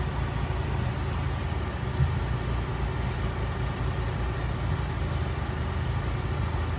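Car engine running steadily at low revs, heard from inside the cabin, with one small knock about two seconds in.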